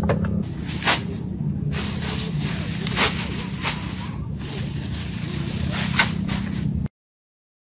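Bamboo poles knocking as they are handled, then leafy branches rustling as they are piled over a lashed bamboo-pole grid, with a few sharp knocks over a steady low hum. The sound cuts off suddenly near the end.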